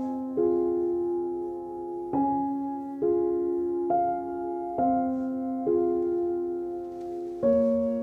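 Slow piano music: sustained chords, a new chord struck roughly every second, each fading away before the next.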